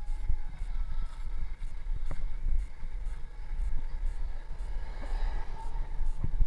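Wind buffeting the microphone of a camera on a moving bicycle, a low, uneven rumble mixed with tyre noise on the asphalt.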